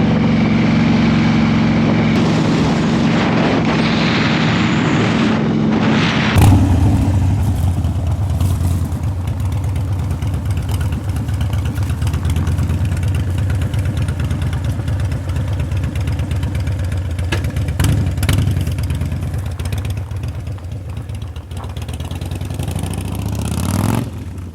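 Harley-Davidson Road King's V-twin engine running on the road, with a haze of wind and road noise. About six seconds in the sound changes suddenly to a lower, steadier engine note, which falls away near the end.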